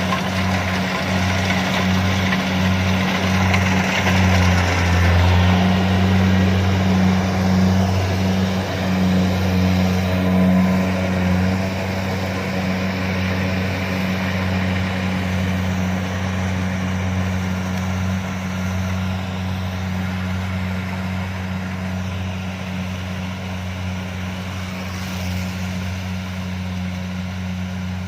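Kubota DC-70 combine harvester's diesel engine running with a steady low drone. It is louder in the first third and fades slowly after.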